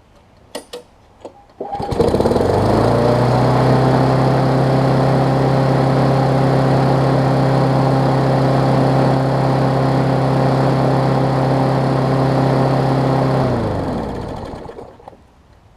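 Briggs & Stratton Classic single-cylinder side-valve engine on a push mower. After a few clicks it starts, runs at a steady speed for about eleven seconds, then is shut off and winds down to a stop. It is running on a freshly replaced carburettor diaphragm and spark plug, with its speed just adjusted after running a little fast.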